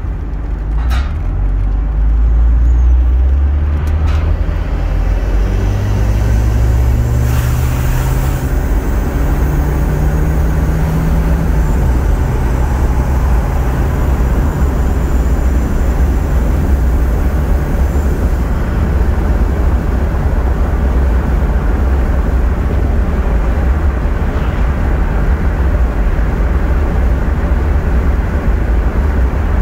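Volvo 940 turbo's turbocharged four-cylinder engine heard from inside the cabin as the car accelerates, its pitch rising in steps through the gears over the first dozen seconds, then settling into a steady cruise with a low drone and road noise.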